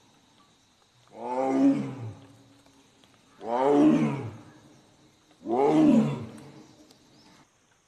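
Tiger roaring three times, about two seconds apart, each roar about a second long and falling in pitch.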